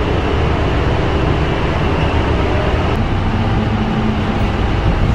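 Steady rumble of a BRT route bus's engine and tyres heard from inside the cabin while it drives, with a faint engine hum that comes up about three seconds in.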